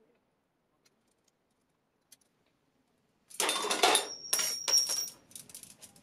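Faint ticks of a small tubing cutter turning on copper tubing, then a cut-off copper-tubing coil dropping onto a metal cart and clattering for about two seconds with a high ringing note.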